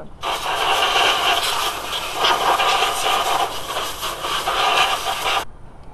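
Compressed-air blow gun hissing loudly as it blasts dirt away from around the thermostat housing. It starts just after the beginning and cuts off sharply about five and a half seconds in.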